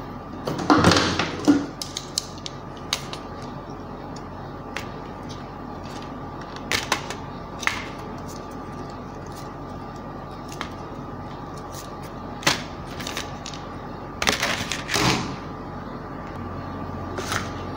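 Small clicks and clatter of hands working crimp terminals and a hand crimping tool on insulated wires, with two louder bursts of handling about a second in and near the end, over a steady background hum.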